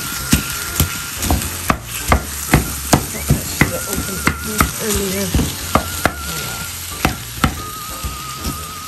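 Frozen ground beef being chopped apart in an enamelled cast-iron pot: sharp knocks of the utensil against the pot, about two a second and a little uneven, over the steady sizzle of the meat frying.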